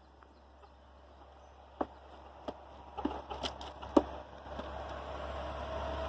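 A few sharp clicks and knocks, a second or so apart, the loudest about four seconds in, over a low steady hum that grows louder toward the end.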